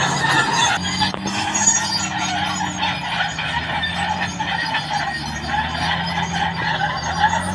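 Caterpillar D6R XL bulldozer working, its diesel engine running steadily with the clanking of its steel tracks over it.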